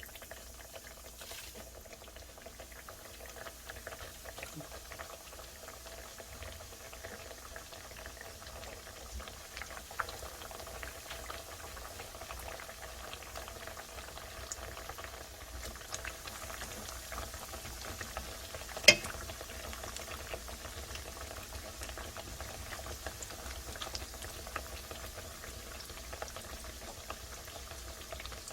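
Cooking oil sizzling with a faint, steady crackle in a frying pan, with one sharp click about two-thirds of the way through.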